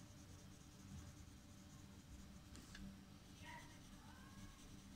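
Faint scratching of a pencil shading on paper over a low room hum.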